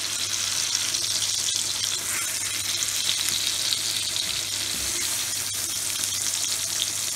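Chapli kebab patties sizzling steadily in shallow oil on a flat griddle, a bright, even frying hiss, with a slotted spatula now and then scraping and pushing at them.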